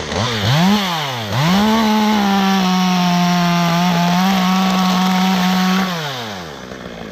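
Two-stroke chainsaw blipped twice, then held at full throttle for about four seconds, plausibly cutting through a limb, before the throttle is released and the engine slows back toward idle near the end.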